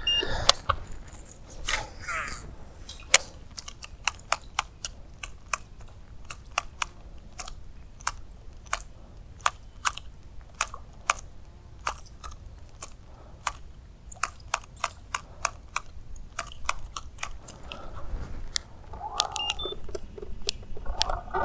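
Fishing tackle during a cast and retrieve: a brief whir of line about two seconds in, then sharp, irregular clicks a few times a second as a topwater stickbait is twitched and walked across the water.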